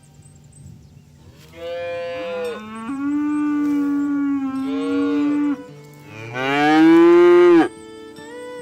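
A cow mooing: a long, wavering moo that starts a couple of seconds in, then a shorter, louder moo near the end.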